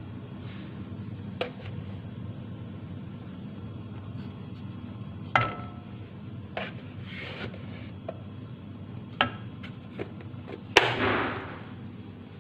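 Kitchen handling sounds: a series of sharp clinks and knocks of utensils or dishes, one ringing briefly like metal or glass, with the loudest knock near the end followed by a second of rustling clatter.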